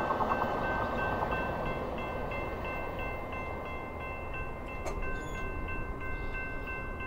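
Electronic railway crossing bell ringing steadily at about three strokes a second over the fading rumble of a VIA Rail passenger train pulling away, with a single sharp click about five seconds in.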